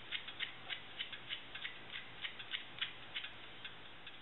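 Lemon peel being zested: quick, irregular scraping strokes, about four a second.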